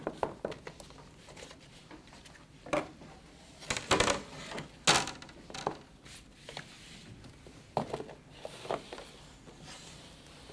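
A Ouija board and its game box being handled on a table: the lid lifted off, the board and planchette set down, giving a series of light knocks and scrapes, the sharpest about five seconds in.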